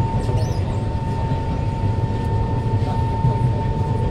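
Kawasaki C151 metro train with GTO-VVVF traction, heard from inside the carriage while running along the line: a steady low rumble of wheels on rail with one steady high whine from the traction motors.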